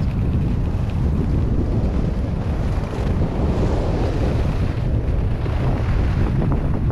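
Wind buffeting the microphone of a camera carried by a skier speeding downhill in a tuck: a loud, steady, deep rumble, with the skis hissing over groomed snow beneath it.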